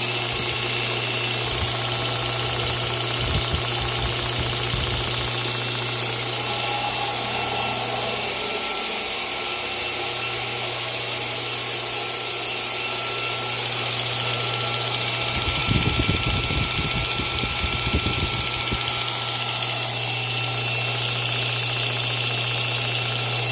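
Surface grinder converted to a 2x72 belt grinder, running free after switch-on: a steady motor hum with the belt whirring over its wheels, tracking true on the tracking arm. A few seconds of low, uneven rumble come in about two thirds of the way through.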